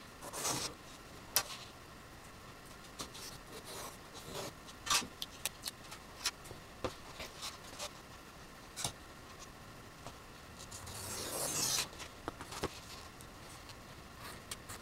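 Hobby knife cutting through a foam sheet along a metal ruler: scattered short scrapes and clicks, with one longer drawn-out cut about eleven seconds in.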